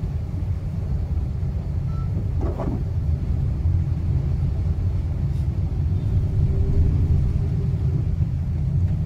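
Steady low rumble of a vehicle, heard from inside its cabin as it moves along a flooded road.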